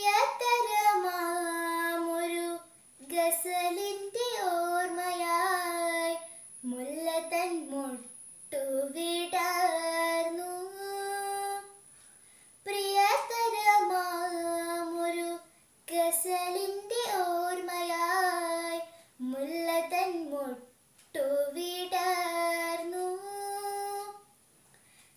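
A young girl singing a Malayalam lalithaganam (light song) solo and unaccompanied, in phrases of two to three seconds with short breaths between them and long held notes.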